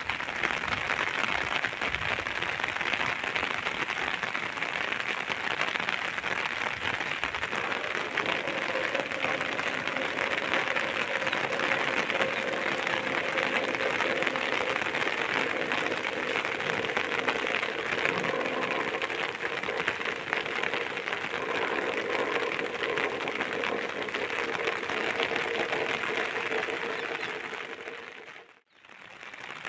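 Steady rain falling, a dense even hiss that fades out briefly near the end and comes back.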